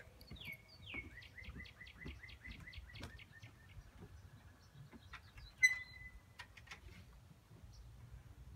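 A songbird singing a quick run of about a dozen falling whistled notes, about four a second, fading out after three seconds. A little past halfway a sharp click comes with a short ringing tone, the loudest sound.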